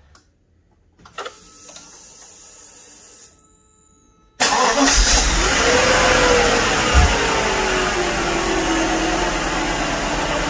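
Mercedes M119 5.0-litre V8 cranking and starting about four seconds in, after a faint hum, then running loudly and steadily with a whine in its note that falls in pitch over a few seconds.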